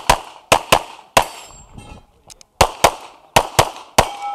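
Semi-automatic pistol firing quick pairs of shots, about nine in all, the two shots of each pair a fraction of a second apart. There is a longer pause between pairs in the middle.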